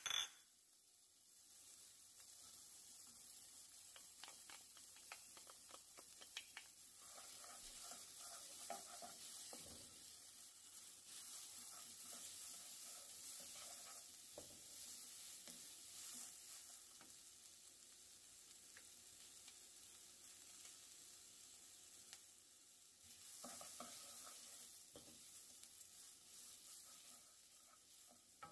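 Faint sizzle of rice, diced onion and garlic sautéing in oil in a ceramic-lined pan, with a wooden spoon stirring and scraping the grains around.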